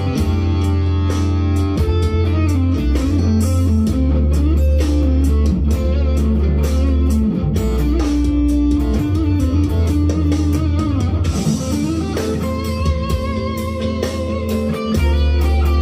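Leo Jaymz SG-copy electric guitar, through its humbucker pickups, playing a lead melody over a groove backing track in A minor with bass and drums. Near the end it holds notes with vibrato.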